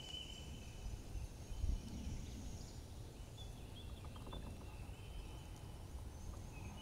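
Quiet spring woodland ambience: a low steady rumble with a soft thump a little under two seconds in, and faint thin high trills now and then.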